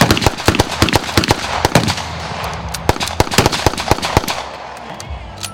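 Rapid, overlapping gunshots from several guns fired at once, several shots a second, thinning out after about four seconds to a few last shots.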